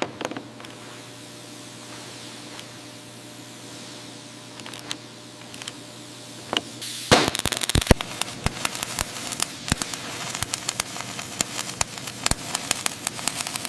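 Electric welding arc: a steady hiss, then from about halfway through a dense, irregular crackling and snapping.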